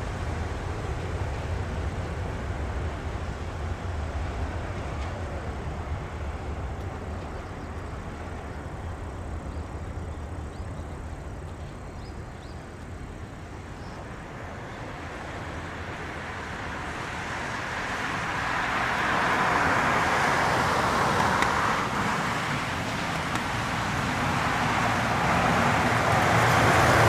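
Jet engine noise from a Boeing 777-200ER's Rolls-Royce Trent engines: a low rumble at first, then a roar that grows much louder over the second half as the airliner comes closer.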